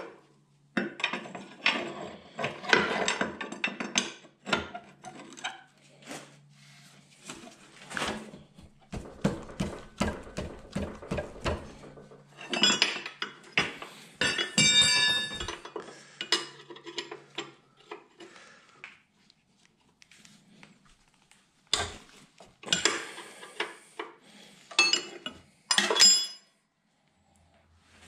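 Wrench clinking, knocking and scraping against steel while bolts are worked on a hydraulic pump's mounting bracket. The knocks come irregularly, with bursts of ringing metallic clinks about 13 to 15 seconds in and again near the end.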